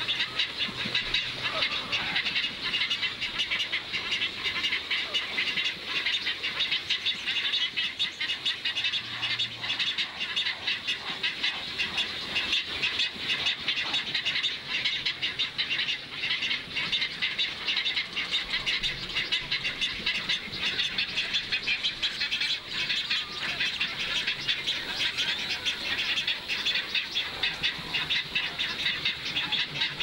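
Wetland ambience at a spoonbill and egret nesting colony: a dense, steady high-pitched chorus of rapid chirps.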